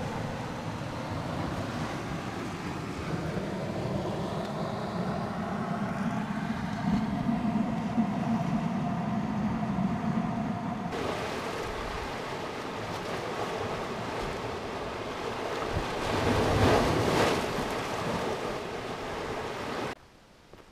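Water washing against the rocks of a shoreline grotto, heard as a steady rushing mixed with wind on the microphone. A louder swell comes a few seconds before the sound cuts off abruptly near the end.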